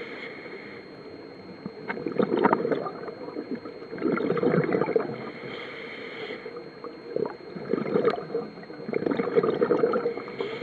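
A scuba diver breathing through a regulator, heard underwater: bursts of exhaled bubbles gurgling every two to three seconds, with a short hiss of inhalation between some of them.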